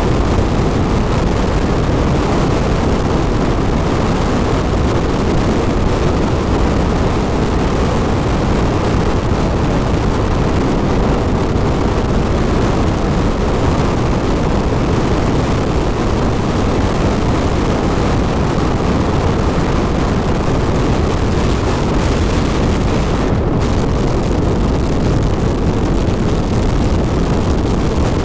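Steady loud rush of wind on the microphone and engine noise from a Hero XPulse 200 single-cylinder motorcycle riding at speed.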